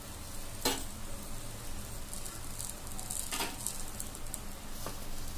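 Puran poli frying on a hot tava: a light steady sizzle with faint crackles as oil is spooned onto it. Two short knocks, the first less than a second in and the louder, the second a few seconds later.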